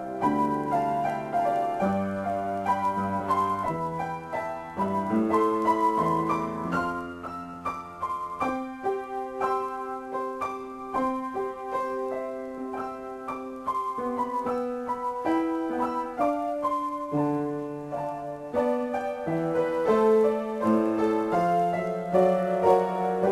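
Solo piano improvisation: chords with low bass notes under a slow melody, the notes ringing on.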